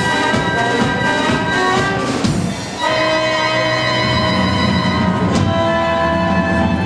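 Live pit orchestra playing. About two and a half seconds in, a lively rhythmic passage breaks off and gives way to long held chords.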